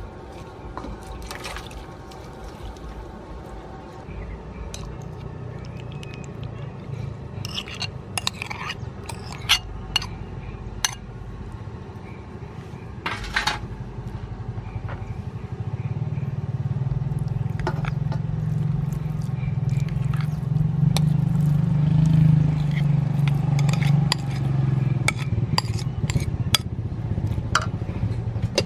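Metal spoon tapping and clinking against an aluminium bowl in scattered strokes as dessert ingredients are mixed. Under it, a low engine drone grows louder through the second half and becomes the loudest sound.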